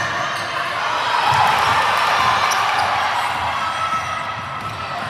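Basketball bouncing on a court amid steady crowd noise in a gym; the crowd noise grows louder about a second in and eases after a couple of seconds.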